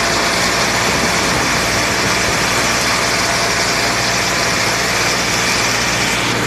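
Farm tractor engine running steadily, pulling and powering a hay mower that is cutting standing grass.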